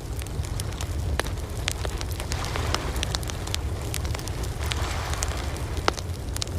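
Wood campfire crackling, with sharp snaps and pops scattered irregularly, over a steady low rumble and the rising and falling wash of ocean surf.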